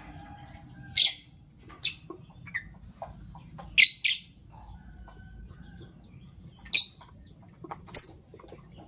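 Lovebird giving short, shrill chirps, about six in all spaced a second or more apart, with two in quick succession about four seconds in.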